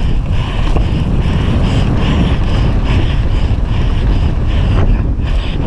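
Wind buffeting an action camera's microphone as a downhill mountain bike rides fast down a dirt track, with the tyres rumbling over the ground.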